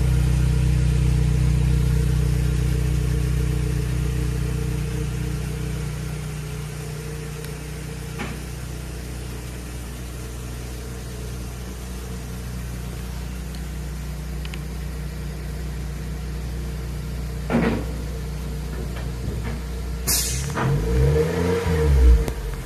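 2006 Suzuki Swift 1.5 four-cylinder engine idling through an aftermarket header, metal catalytic converter and single-can muffler, the idle settling lower over the first few seconds. A single knock comes about eighteen seconds in, and near the end the throttle is blipped once, the revs rising and falling back to idle.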